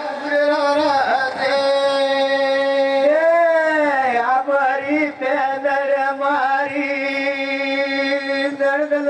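A singer's voice holding long, drawn-out notes of traditional Mewari Gavri folk song, with one note swelling up and falling away about three seconds in.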